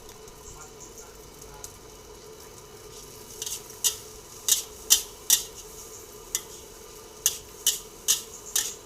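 A metal spatula clanging and scraping against a wok while fried rice is stir-fried. Sharp clinks start about three and a half seconds in, about ten in all, irregularly spaced.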